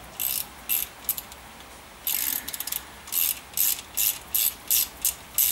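Ratchet clicking as the screw of a car scissor jack is wound by hand: a few irregular clicks at first, then a steady run of about three clicks a second from about halfway in.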